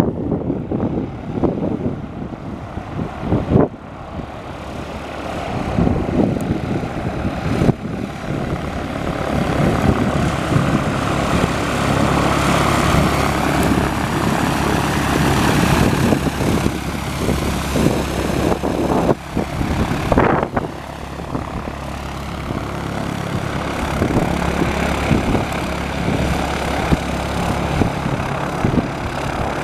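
Piper PA-28-161 Warrior's four-cylinder Lycoming engine and propeller running at taxi power as the plane taxis past, louder as it comes close near the middle. A few sharp knocks are heard along the way.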